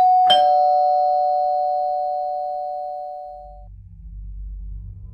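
Two-tone doorbell chime: a ding-dong of two struck tones, the second lower, ringing and fading out over about three seconds. A low rumble comes in after about three seconds.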